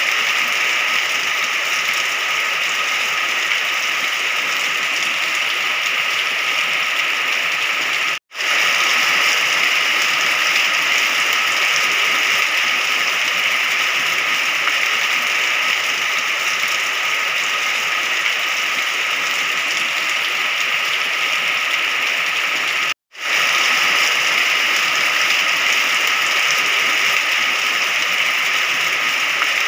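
Steady rain hiss, even and unbroken except for two brief silent gaps, about eight seconds in and again about twenty-three seconds in.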